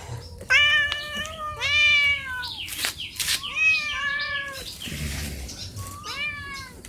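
Domestic cat meowing about four times, each meow rising then falling in pitch, begging for food at feeding time. A couple of sharp clicks sound between the meows near the middle.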